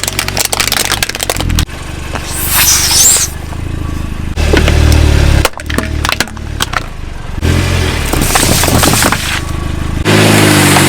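Crunchy objects crackling, snapping and breaking as they are crushed under a car's tyres, in several abruptly cut takes over a low steady hum.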